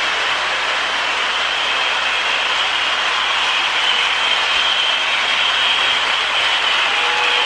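Lionel MPC Hudson toy steam locomotive running on the track, a steady whirring, rushing noise of its motor, wheels and sound-of-steam tender. About seven seconds in, a steady two-note whistle tone starts, the tender's whistle.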